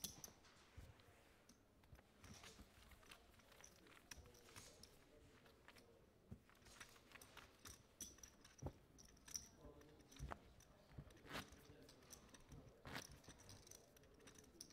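Quiet table sounds: scattered soft clicks and clacks of poker chips being handled, with a few sharper clacks in the second half, over a faint room murmur.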